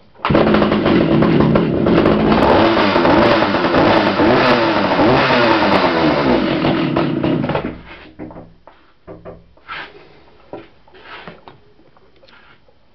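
Partner R18 two-stroke chainsaw starting up and running for about seven seconds, its revs rising and falling, then stopping, followed by a few light clicks and knocks. It is the saw's first run after a carburettor cleaning, with the tuning not yet finished.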